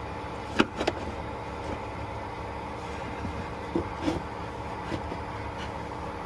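A few light clicks and knocks of a work light's clamp being handled, the loudest pair just under a second in and a smaller pair around four seconds in, over a steady mechanical hum.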